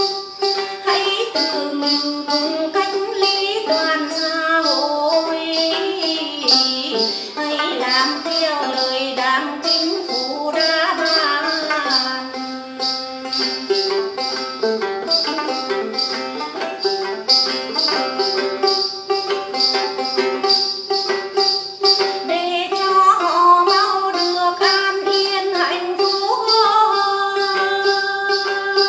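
A woman singing a Tày then song to her own đàn tính, a long-necked gourd lute plucked in a steady pattern. Her voice slides and wavers between notes over a high jingling beat.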